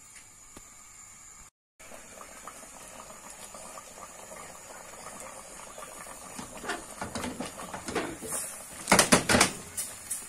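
Thick taro-leaf soup bubbling in a pot on the fire, with irregular pops that grow busier, and a few loud knocks near the end. The sound drops out briefly about a second and a half in.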